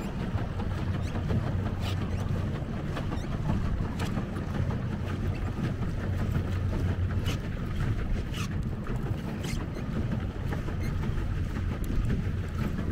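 Wind buffeting the microphone over water lapping and splashing against a pedal boat's hull, with a few scattered sharp splashes or knocks.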